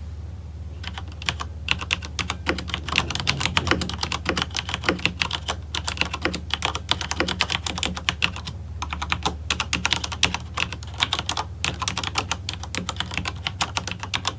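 Typing on a Corsair Strafe RGB MK.2 mechanical keyboard with Cherry MX Red switches. Rapid key clicks start about a second in and run in quick runs with a few brief pauses.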